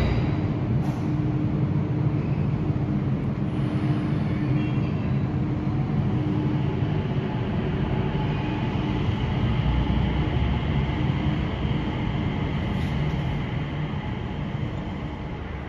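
Changi Airport Skytrain, a rubber-tyred automated people mover, running along its elevated guideway: a steady low rumble with a faint whine, growing fainter near the end.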